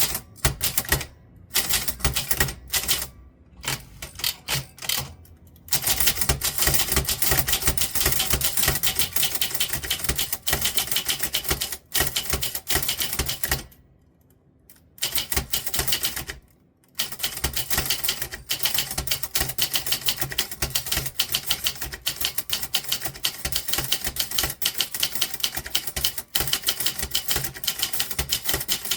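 Typewriter keys struck in fast runs of sharp clicks, with short breaks early on and a pause of about three seconds midway.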